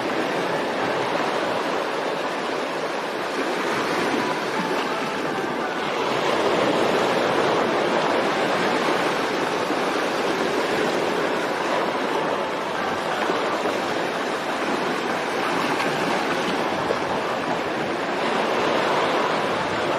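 Steady rushing noise of wind and churning sea water as the ship moves through the sea, with wind buffeting the microphone.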